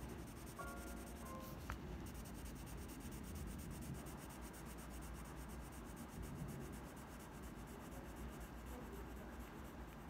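Graphite pencil shading on sketchbook paper: the lead rubbing steadily back and forth across the page, faint and continuous.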